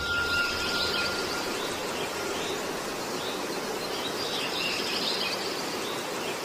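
Steady background hiss, with faint bird chirps high up.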